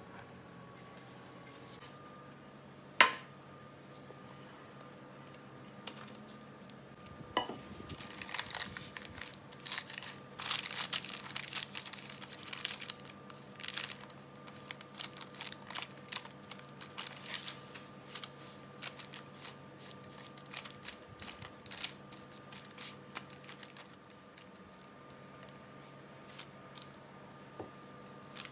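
Silicone spatula scraping and pressing crumbly coconut dough, first in a stainless steel bowl and then into a parchment-lined baking tray, with the baking paper crinkling under it in irregular strokes. A sharp knock about three seconds in is the loudest sound, with a lighter one a few seconds later.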